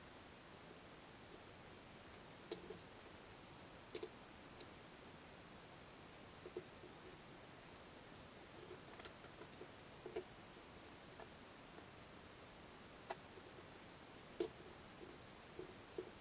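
Thin wooden plank being split and cut by hand with a knife into kindling: irregular, scattered sharp clicks and small cracks of the wood over a faint steady hiss.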